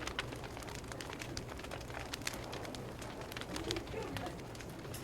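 Wood fire crackling, with irregular sharp pops and snaps over a low steady hum.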